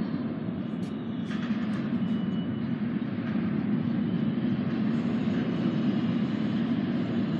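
Alstom-built R160A subway train approaching through the tunnel: a steady low rumble that grows gradually louder, with a few sharp clicks in the first two seconds.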